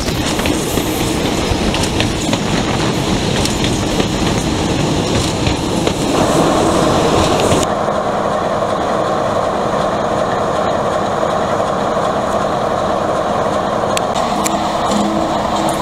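A diesel-hauled train running along the track, heard from the train with wheel clatter and rushing air. After a cut about eight seconds in, a British Rail Class 46 'Peak' diesel locomotive's Sulzer engine runs steadily, a steady tone joining it near the end.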